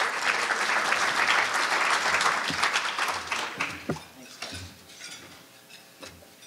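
Audience applause that fades out about four seconds in, leaving a quieter room with scattered small clicks.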